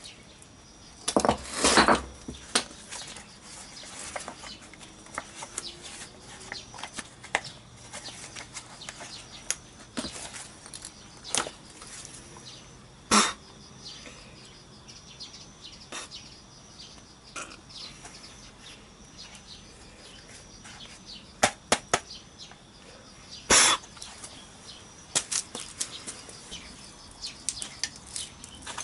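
Scattered clicks, clunks and rattles of metal and plastic parts being worked loose by hand as a scooter is dismantled, with louder knocks near the start, about halfway through and a few near the end.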